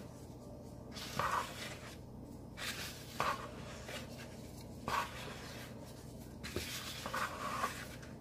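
Wooden spoon scraping and stirring through flour and wet batter in a mixing bowl: repeated rubbing strokes, roughly one every second or two, as the flour is folded in.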